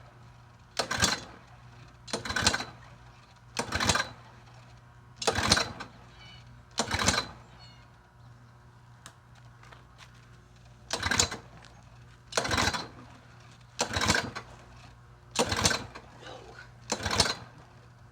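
Recoil starter cord on the Toro TimeMaster's replacement mower engine pulled again and again: two rounds of five quick pulls about a second and a half apart, each a short rasp of the cord and cranking engine, with no catch. The engine isn't starting, which the owner puts down to the ignition coil gap at the flywheel or too little fuel.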